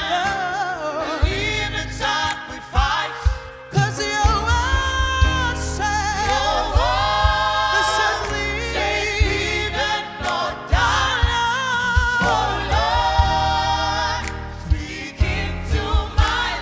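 Gospel worship music: a choir and vocalists singing with vibrato over a live band's bass and drum beat.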